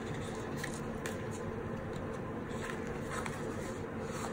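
Steady low room hum with a few faint ticks and rustles of paper sticker sheets being handled.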